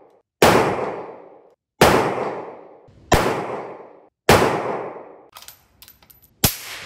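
Four rifle shots from a muzzle-braked 6.5 Creedmoor bolt-action rifle, about a second and a half apart, each a sharp crack with a long fading echo. Near the end come a few light clicks and then another shot.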